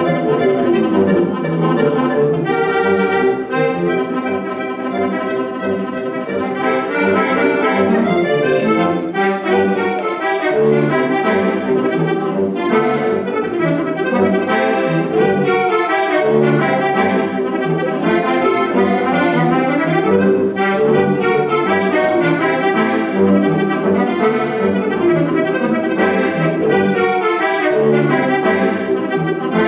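Steirische Harmonika (diatonic button accordion) playing a traditional Alpine folk tune: quick melody notes in the right hand over a steady rhythmic bass.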